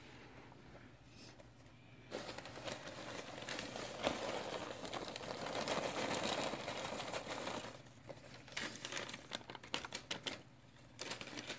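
Rustling and crinkling handling noise, dense for several seconds from about two seconds in, then breaking up into scattered light clicks and taps.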